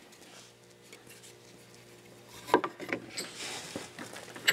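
A wooden board and a metal doweling jig being handled and clamped together on a workbench: a few sharp knocks and clicks with some scraping, starting about halfway through after a quiet start.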